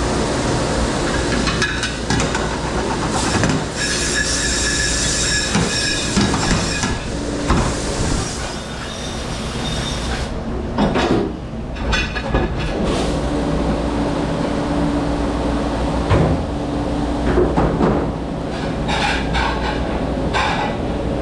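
Commercial dish room noise: a steady machine hum and rumble, with dishes, racks and utensils clattering and knocking at irregular moments.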